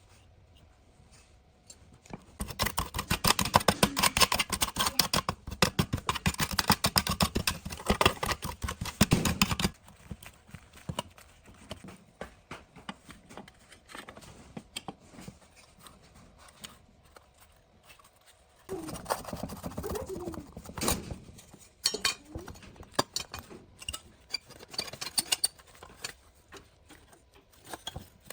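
Hand-tool work on a part: two long spells of rapid scraping and clicking, the first and louder lasting about seven seconds and the second about two seconds, with scattered sharp clicks and taps between and after.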